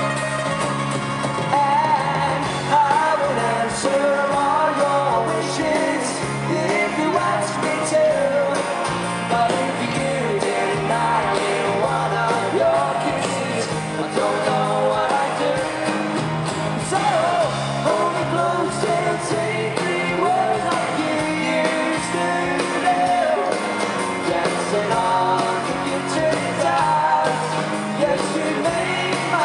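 Live pop-rock band playing with strummed acoustic guitar and a sung vocal line, heard from among the audience in an arena, with some yelling from the crowd.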